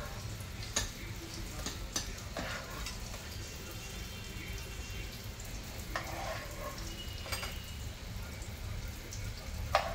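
Metal spatula scraping and tapping against a ceramic bowl while pressing soft suji halwa. There are a few sharp clinks, the loudest near the end, over a steady low background hum.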